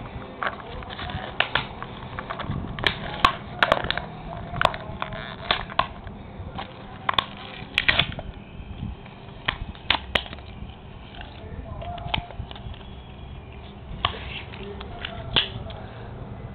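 Plastic blister packaging of a toy pullback car being handled and pried open: irregular sharp crackles and clicks.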